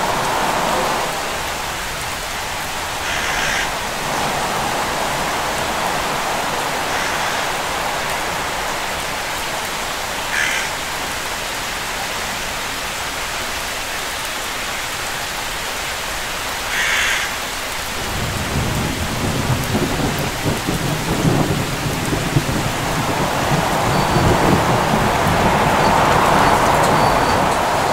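Steady rain with thunder rumbling low from about two-thirds of the way in, growing louder toward the end. A few brief high calls, about one every six or seven seconds, sound over the rain in the first part.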